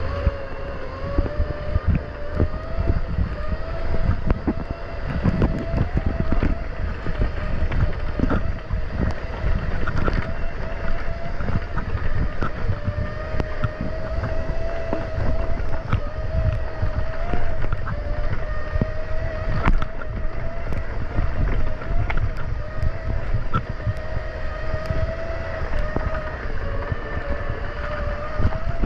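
Boat engine running with a steady drone, with wind buffeting the microphone throughout.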